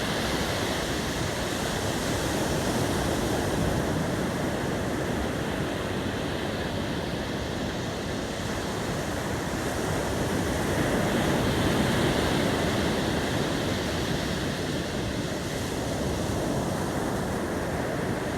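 Sea surf washing on the shore, a steady rushing wash that swells and eases a couple of times.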